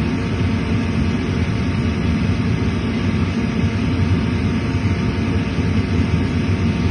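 Bryant 80% gas furnace running with its draft inducer fan on, a steady hum with no breaks, during the pre-ignition stage while the newly fitted igniter heats up.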